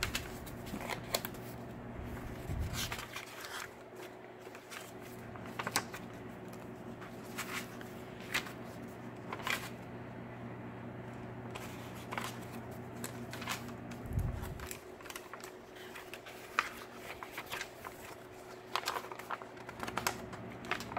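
Pages of a handmade, coffee-dyed paper journal insert being turned one after another, giving irregular paper rustles and flicks over a steady low hum.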